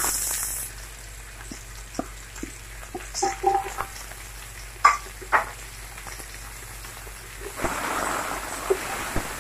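Sliced onions dropped into hot oil in a large aluminium pot, sizzling loudly at the start. A wooden spatula then knocks and scrapes against the pot a few times as the onions are stirred, and the frying hiss picks up again near the end.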